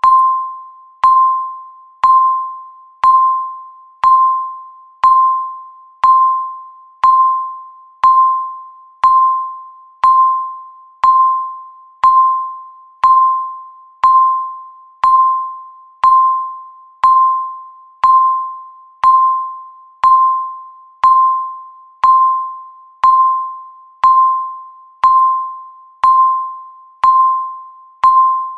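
Electronic countdown-timer beep sounding once every second, marking each second as the timer counts down. Each beep is the same single high tone, struck sharply and fading away before the next.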